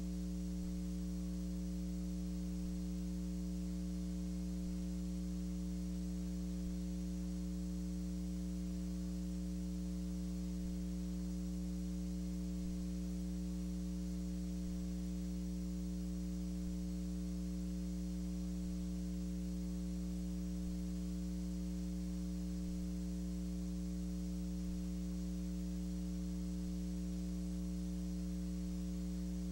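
Steady electrical mains hum, one unchanging low buzzing tone over faint hiss, with no other sound.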